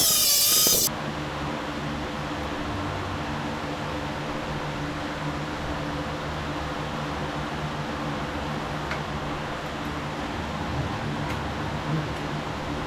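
A power tool cutting metal stops abruptly about a second in, leaving a steady machine hum like a cooling fan running, with a few faint clicks.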